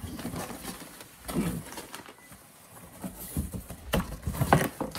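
Irregular rustling, tapping and clicking of items being handled while someone rummages through a box of purchases, with a quick run of sharper clicks near the end.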